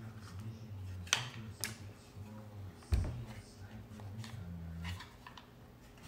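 A clear plastic waterproof GoPro Hero 9 housing being handled and its door and latch worked: two sharp clicks about a second in and a dull knock near three seconds, over a low steady hum.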